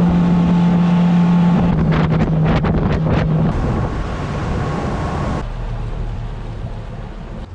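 A motorboat's engine running at speed, with wind rushing over the microphone. The engine's steady hum drops out about three and a half seconds in, leaving wind and water noise that falls off in level about five seconds in.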